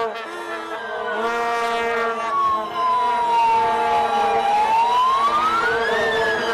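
Vuvuzelas droning on long, steady low notes, with a siren wailing over them: its pitch falls slowly, climbs to a peak about six seconds in, then falls again.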